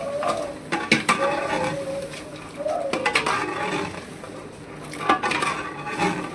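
Metal ladle stirring chicken and masala in a large cooking pot, scraping and knocking against the pot, with a few sharp clanks.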